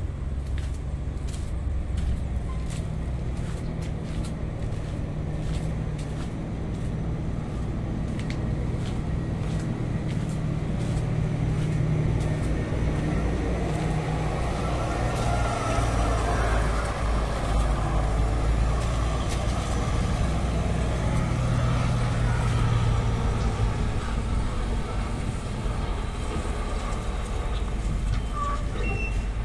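Scania heavy truck's diesel engine idling steadily, growing somewhat louder about halfway through as it comes closer. Light irregular clicks sound over it in the first third.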